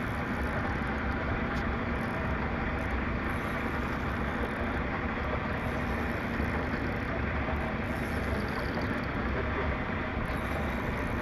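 Steady low rumble and hiss on a small boat at sea: wind buffeting the microphone over the drone of the boat and the water.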